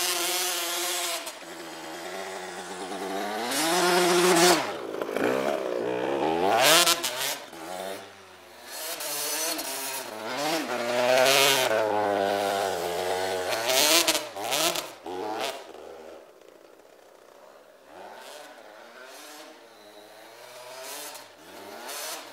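KTM SX 85 two-stroke dirt bike engine revving hard and repeatedly, its pitch rising and falling as the throttle is worked through deep snow. It is loud up close for about the first fifteen seconds, then fainter as the bike rides away.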